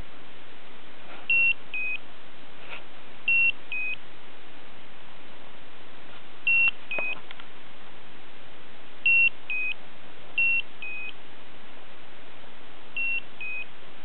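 Slendertone Men's Abs stimulation belt beeping a two-note "beep-bep", a higher note and then a slightly lower one, six times at irregular intervals. The beeps are no warning the owner can find: the battery is full and there is no pad or connection error, though the owner thinks the pads might be too cold or dry.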